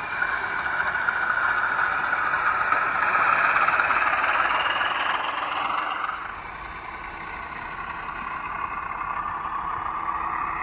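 Recorded Class 14 diesel-hydraulic locomotive engine sound played by a Zimo DCC sound decoder through the model's small speaker, building up louder and then dropping back about six seconds in.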